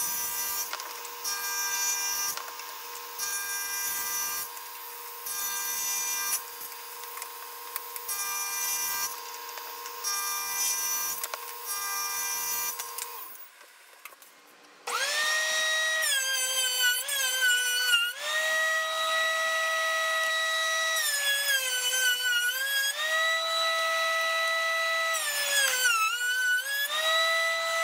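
A table saw runs with a steady whine, making repeated quick cuts through hardwood. After a short lull about halfway, a DeWalt benchtop thickness planer runs with a loud high whine, its pitch sagging and recovering several times as boards feed through under load.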